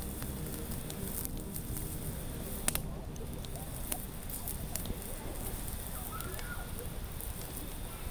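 Fire crackling in a fire pit: a steady hiss with scattered pops, the sharpest a little under three seconds in.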